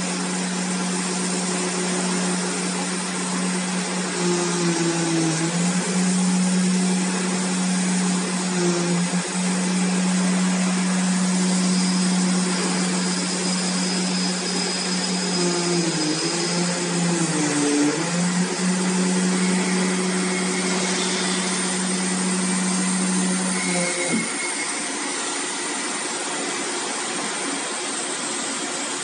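MISSILECNC M5S CNC cutter running with its oscillating knife: a steady low hum with brief dips and wavers, over a dense steady rushing like a vacuum blower. The hum drops out about five seconds before the end, leaving the rushing.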